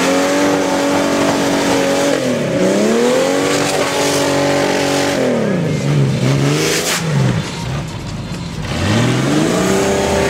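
Offroad 4x4's engine revving hard under load. The revs are held high, drop briefly, climb and hold again, then fall back and rise once more near the end.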